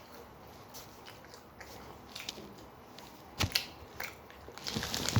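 A person chewing a mouthful of mixed nuts, with scattered crunches and clicks, the sharpest about three and a half seconds in.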